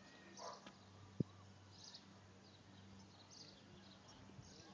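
Near silence: faint, scattered bird chirps over a low steady hum, with a single sharp click about a second in.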